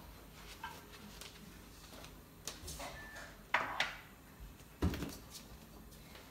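A few brief knocks and clatters over a faint background, the loudest a dull thump about five seconds in.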